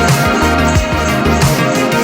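Background music with a steady beat and held instrumental tones.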